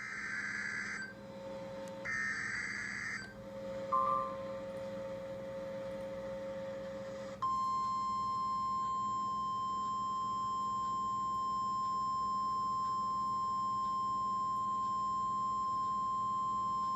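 Two roughly one-second bursts of the raspy two-tone SAME digital header of an Emergency Alert System broadcast on NOAA Weather Radio, the coded start of a tornado warning, then a short beep. About seven seconds in, the steady single-pitch 1050 Hz NOAA Weather Radio warning alarm tone begins and holds.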